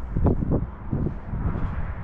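Wind buffeting the microphone outdoors: an uneven low rumble that swells several times.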